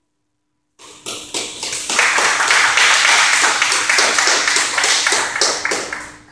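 A small group applauding: hand claps start about a second in, swell to a full patter, and fade away near the end.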